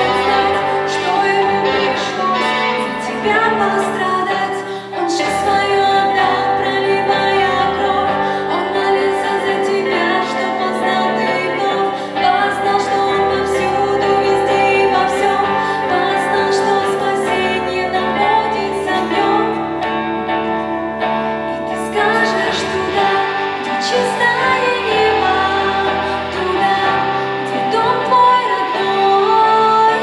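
A woman singing a song through a microphone and PA, accompanied by two electric guitars.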